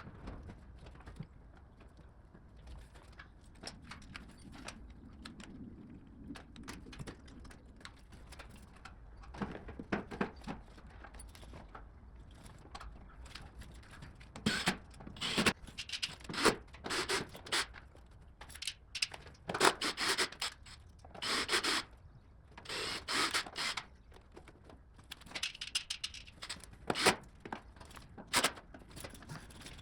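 Intermittent scraping and rustling as motorcycle parts are handled during an air filter change. The scrapes come in short, irregular bursts and grow louder and more frequent in the second half.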